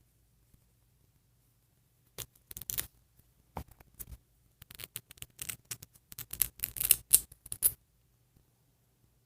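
Small plastic doll pieces being handled: an irregular run of clicks, taps and rustles starting about two seconds in, loudest shortly before it stops near the end.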